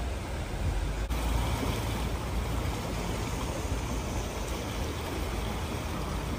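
Fast-flowing floodwater rushing and churning around submerged trees: a steady roar of water with a deep rumble underneath.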